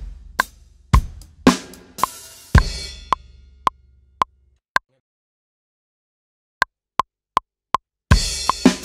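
A rock drum kit plays a groove that ends about two seconds in on a crash cymbal, which rings and dies away. Next come a few lone clicks from a click track, a short silence, and a four-click count-in at about 160 bpm. The kit comes back in just before the end.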